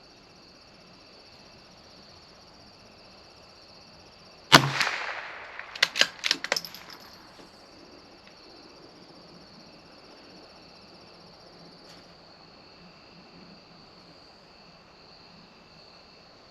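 A single shot from a CZ 457 .22 LR bolt-action rifle, followed about a second and a half later by four quick metallic clicks as the bolt is worked to eject and chamber the next round.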